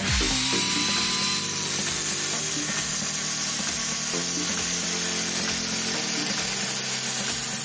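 Handheld angle grinder with a thin cutting disc running and cutting along a steel plate: a steady high hiss and whine, over background music.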